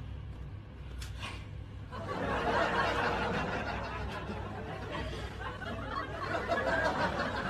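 Snickering and laughter, starting about two seconds in and running on densely, over a low steady hum.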